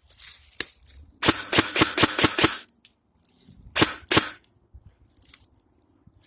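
Airsoft gun firing a quick string of about eight shots, then two more shots about a second apart.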